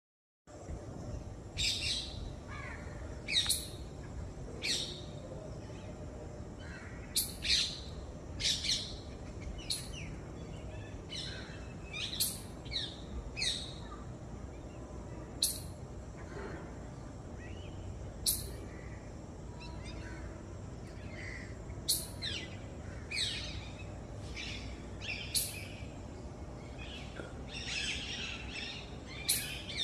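Forest birds calling: short, sharp, high chirps repeated every second or two, some in quick pairs and a busier cluster near the end, over a steady low background hum.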